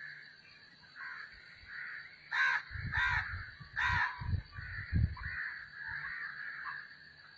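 A crow cawing three times in quick succession, about two and a half to four seconds in, over steady chirping from other birds. Low thumps run under the middle calls.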